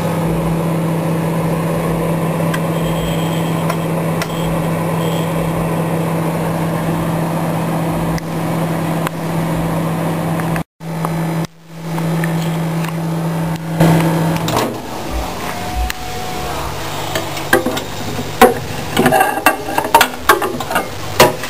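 Microwave oven running with a steady low hum, which drops out twice briefly in the middle and stops about two-thirds of the way through. A series of sharp clicks and light knocks follows toward the end, as of the oven door and the chip-maker tray being handled.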